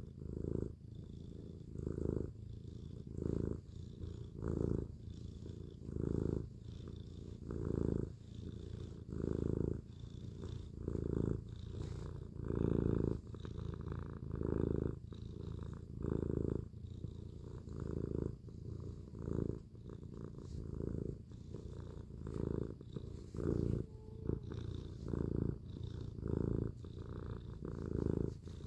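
Domestic cat purring close up, a deep steady rumble that swells and eases with each breath, about every second and a half.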